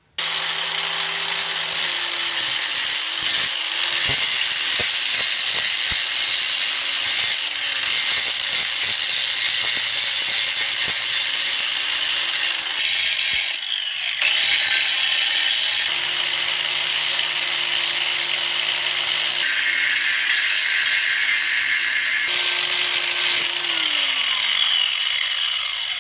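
Angle grinder grinding the steel of a railroad-track anvil: a loud, steady high grinding hiss over the motor's hum, whose pitch dips a few times and falls near the end. The sound changes abruptly several times, as if in spliced stretches.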